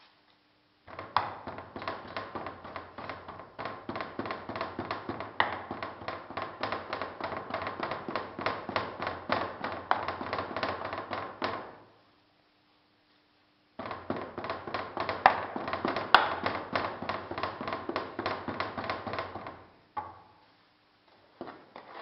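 Moulding sand being rammed down by hand into a metal casting flask: rapid taps, several a second, in two long runs with a pause of about two seconds between them, then a few scattered knocks near the end.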